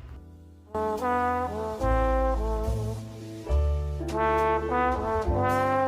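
Background music led by brass instruments, sustained notes changing every half second or so over a deep bass line, coming in just under a second in.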